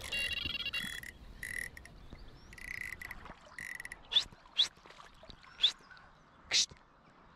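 Frogs croaking from weedy lake water: a few softer calls, then four loud, short croaks in the second half.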